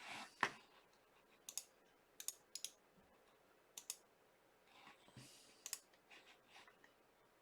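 Faint computer mouse clicks, several quick double clicks spaced a second or so apart, over near silence.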